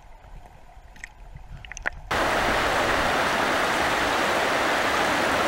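Muffled underwater sound with a few faint clicks, then about two seconds in a sudden change to the steady rush of a fast, shallow river riffle.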